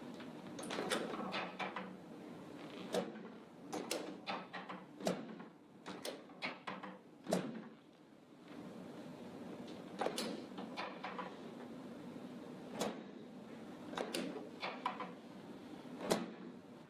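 Irregular sharp clacks and knocks, about a dozen and a half, with rustling in between, from a chiropractic table and hands working on a patient during an adjustment.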